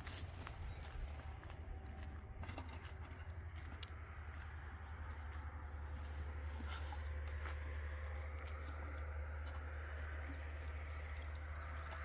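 An insect chirping steadily, about three short high chirps a second, over a steady low rumble.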